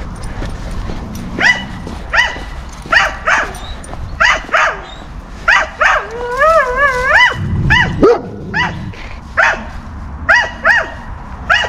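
A yard guard dog behind a chain-link fence barking repeatedly in short, high-pitched barks, about one or two a second, with a wavering whine in the middle. It is territorial barking at a dog passing its fence.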